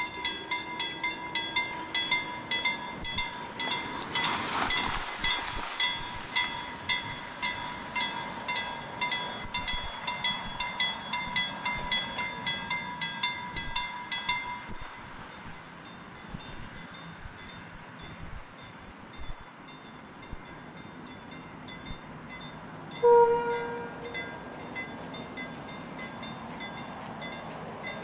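Level-crossing bell ringing with rapid, even strokes, then stopping about halfway through, typical of a Swedish crossing once its barriers are down. Well after that, the Yp railcar sounds one short horn blast, the loudest sound here.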